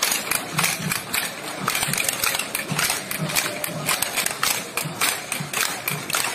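Parade percussion: sharp hits several times a second over low drum beats about twice a second.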